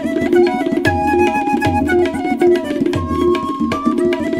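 Tabla playing a dense rhythm, its small drum ringing at one steady pitch and its bass drum giving deep strokes, under a wooden flute playing a melody that moves in steps.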